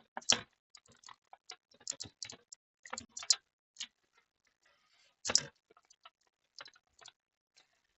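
Irregular small clicks and taps of hands and tools working on an opened laptop's motherboard while a tab is pulled out, with two louder knocks, one just after the start and one about five seconds in.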